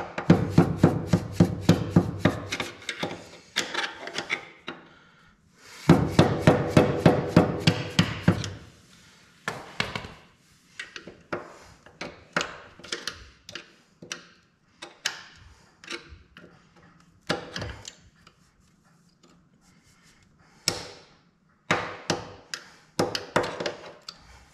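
A mallet rapidly tapping a screwdriver against the flat washer on a Walker mower's gearbox blade shaft to loosen it: two runs of about five taps a second, then scattered lighter clicks and knocks as the screwdriver works at the washer.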